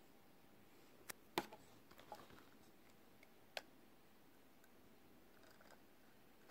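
A few sharp clicks and taps from handling a steel-bracelet smartwatch and its box, the loudest about a second and a half in, with faint rustling between them against near silence.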